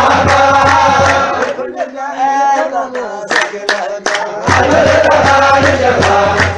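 Menzuma, Ethiopian Islamic devotional chant: male voices singing a melismatic Arabic verse over a deep bass backing and repeated percussive hits. The bass drops out about two seconds in and comes back about four and a half seconds in.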